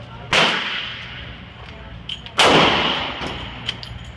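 Two handgun shots about two seconds apart, each a sharp crack followed by a long echoing tail off the walls of an indoor range.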